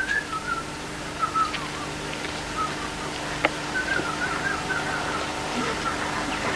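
A person whistling a wavering, warbling tune in short phrases, over a steady low hum, with a single click about three and a half seconds in.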